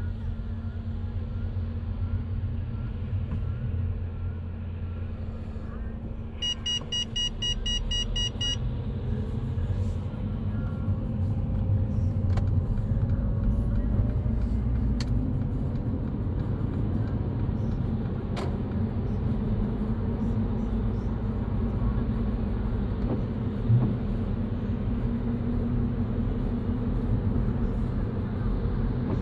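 Car driving, with a steady low road and engine rumble. About six seconds in, a rapid run of high beeps lasts about two seconds, and a few sharp ticks come later.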